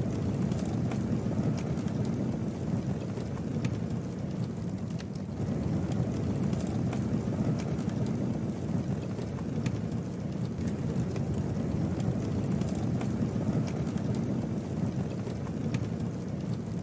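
Campfire burning: a steady low rumble of flames with scattered sharp crackles and pops from the wood.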